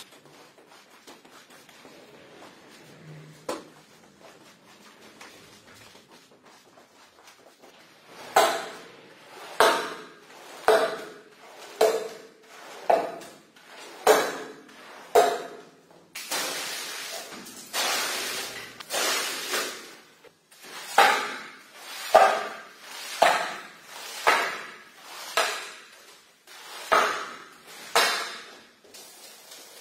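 Squeegee pushed in repeated strokes through soapy water on a wet shag carpet, about one stroke a second, each a sudden scrape that fades quickly, starting about eight seconds in after a quiet stretch.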